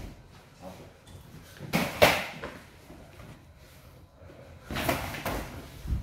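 Thuds and slaps from a taekkyon sparring exchange: a loud cluster of hits about two seconds in and another near five seconds.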